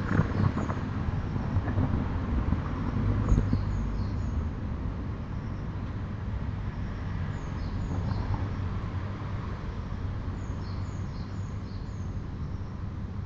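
Steady low outdoor background rumble with small birds chirping in short clusters, a few seconds in and again later on; a couple of faint knocks near the start.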